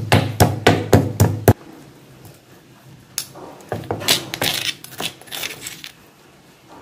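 Stone pestle pounding garlic, ginger and green chillies in a stone mortar, about three dull strikes a second for the first second and a half. After a pause, a steel spoon scrapes and clinks against the stone as the crushed paste is scooped out.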